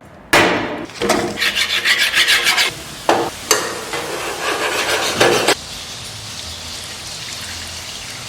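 Rasping, scraping sounds of food preparation: several loud bursts with quick rubbing strokes, then, from about five and a half seconds in, a steadier hiss.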